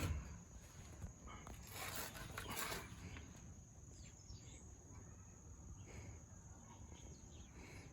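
Faint outdoor ambience with a steady high-pitched insect drone. A few soft handling and scraping noises come about two seconds in.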